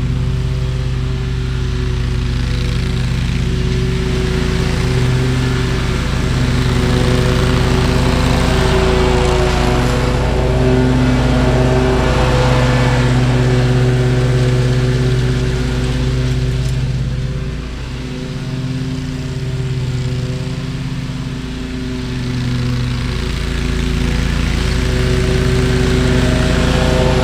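Toro GrandStand stand-on mower running steadily while mowing. It grows louder as it passes close by, dips briefly about two-thirds of the way in, then rises again.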